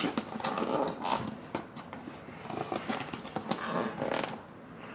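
Hands picking and tearing at a cardboard mailing box: an irregular run of scratchy rips, scrapes and clicks.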